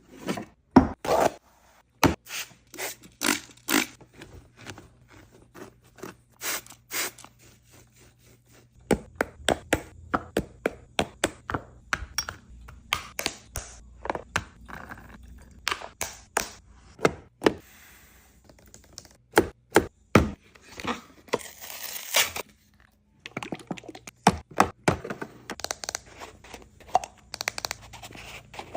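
Items being restocked into a mini fridge: plastic containers, bottles and packaging set down, tapped and slid into place in a rapid run of clacks, knocks and scrapes, with a low steady hum under most of it.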